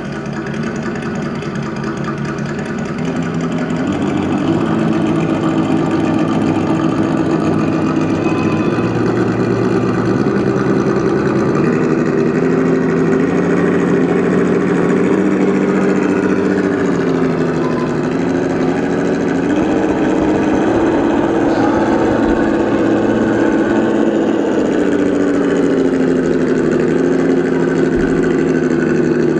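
Simulated truck engine note from an ESS DUAL engine sound simulator's two speakers, running and rising and falling in pitch a few times as the throttle changes.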